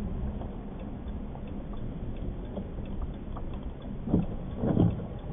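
Car driving slowly on a wet street, heard from inside the cabin: a steady low rumble of engine and tyres, with two short louder sounds about four seconds and just under five seconds in.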